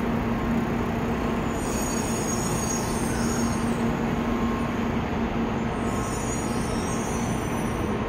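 N700-series Tokaido Shinkansen train standing at the platform, just drawn to a stop: a steady hum from the train's equipment with a low steady tone, and a high hiss that comes and goes twice.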